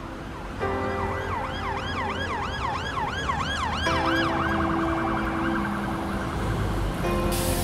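An emergency-vehicle siren sweeping up and down in a fast yelp, about three sweeps a second, changing to a quicker warble about four seconds in. Long, steady horn blasts sound underneath.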